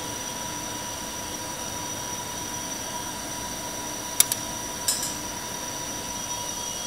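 Steady mechanical hum with a faint high whine. About four seconds in come two sharp metal clicks, and half a second later another clack with a short ring, as a metal clamp is worked onto a 2-inch pipe weld.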